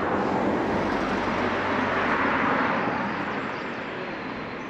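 A road vehicle passing by: tyre and engine noise swells to its loudest about two seconds in, then fades away.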